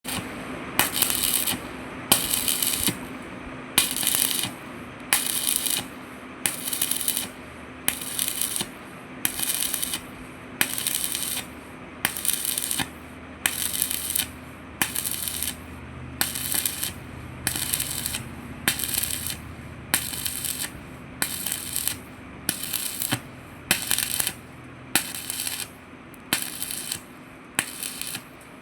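Stick welding arc crackling in short, regular bursts, about one a second, each starting with a sharp snap. A steady low hum runs underneath.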